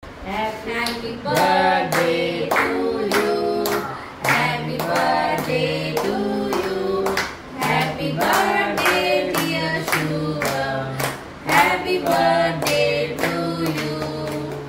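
Voices singing a song over rhythmic hand clapping, about two claps a second.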